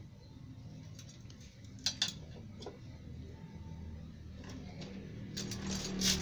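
Scattered metallic clinks and taps, like metal parts or tools being handled. Two sharp clinks come about two seconds in and a denser run comes near the end, over a low steady hum.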